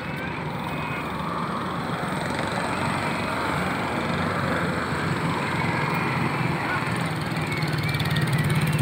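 Road traffic passing: steady engine and tyre noise, with an engine growing louder near the end as a vehicle approaches.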